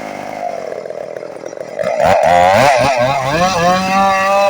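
Chainsaw engine easing off toward idle, then revved back up about two seconds in, its pitch wavering before holding high at full throttle.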